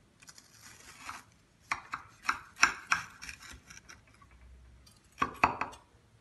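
A knife cutting through a baked kunafa's crisp shredded-pastry crust: a soft scrape, then a run of sharp crunches, loudest around the middle and again about five seconds in.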